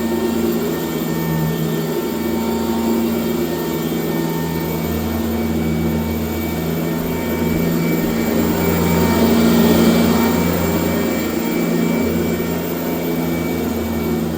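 1996 Sanitaire S663 Type A upright vacuum cleaner running steadily while it vacuums, its motor drone getting a little louder around ten seconds in.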